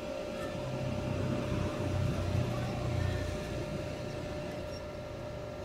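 Steady hum and thin whine of an inverter welding machine running idle with no arc struck, with a low rumble swelling about two to three seconds in.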